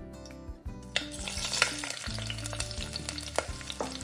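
Sweet-potato pulis (stuffed dumplings) frying in hot oil. The sizzling starts abruptly about a second in and keeps crackling, with sharp pops here and there.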